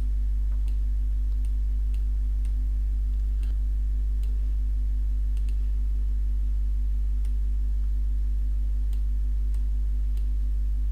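Steady low electrical hum, with faint irregular clicks of a computer mouse as vectors are drawn in Paint.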